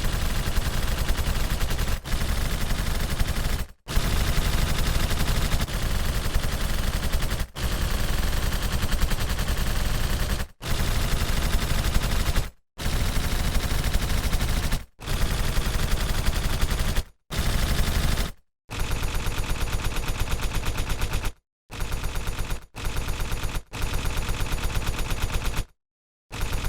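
Machine-gun fire in a string of sustained automatic bursts, each one to four seconds long, with short breaks between them.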